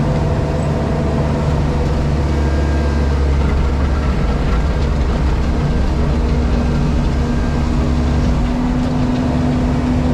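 JCB Pothole Pro's diesel engine running steadily, heard from inside the cab, with a steady hum joining about six seconds in.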